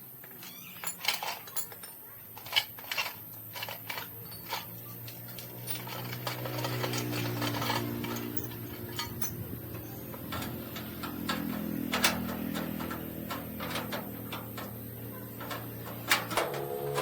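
Small metal parts and hand tools clinking and tapping during repair work, in irregular sharp knocks, with a low steady hum underneath from about a third of the way in.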